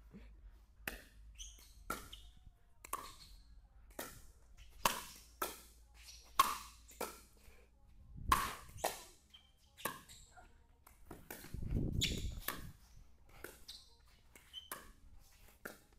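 Pickleball rally: paddles striking the hollow plastic ball and the ball bouncing on the court, a run of sharp pops spaced from a fraction of a second to about a second apart. A longer, louder low rumble comes about three-quarters of the way through.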